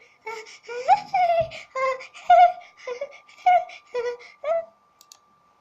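A girl's high-pitched wordless voice in many short, broken, pitch-bending bursts, stopping shortly before the end.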